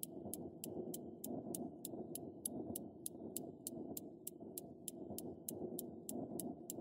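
Steady clock-like ticking, about three ticks a second, over a low muffled rumble, as in a soundtrack.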